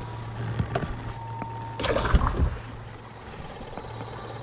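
Fishing boat's electric trolling motor humming steadily, with a thin high whine that cuts out just under two seconds in. A brief loud rush of noise follows at about two seconds, with a few light clicks around it.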